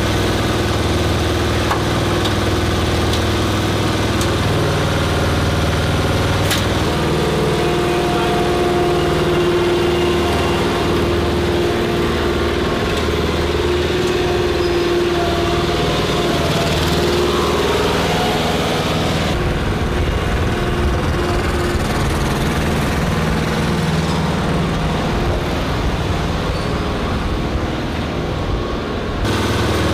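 An engine running steadily at idle, its tone changing about two-thirds of the way through.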